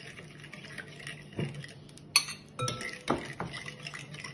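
A metal spoon stirring wet lemon zest, sugar and lemon juice in a glass bowl, scraping and clinking against the glass, with a sharper clink about two seconds in.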